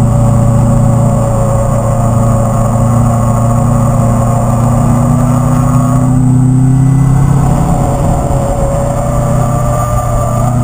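Subaru WRX's turbocharged flat-four engine pulling hard under load on track, heard from inside the cabin. The engine note climbs slowly in pitch, breaks up past the middle, then climbs again from a slightly lower pitch near the end.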